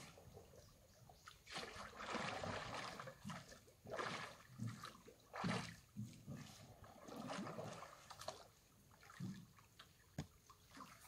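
An oar dipping and pulling through the water as a small wooden boat is rowed, making sloshing splashes a second or two apart.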